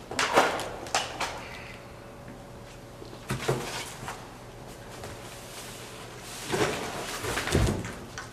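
Cardboard box flaps rustling and a gas string trimmer knocking against them as it is rummaged for and lifted out of a large shipping box, in three separate bursts of clatter; the loudest, with a low thump, comes near the end.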